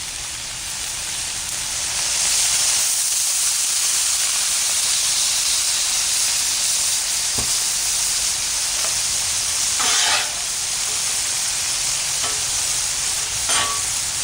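Vegetables sizzling on a Blackstone flat-top griddle: a steady hiss that swells about two seconds in. Short scrapes or clanks come about ten seconds in and twice near the end.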